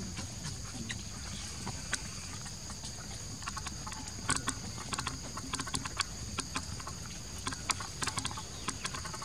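Outdoor ambience: irregular sharp clicks and crackles, thickest in the second half, over a steady low rumble and two faint steady high-pitched tones.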